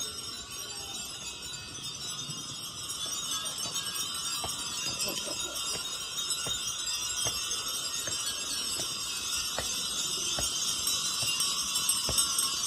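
Wind chimes tinkling, with regular footsteps a little over one a second starting a few seconds in.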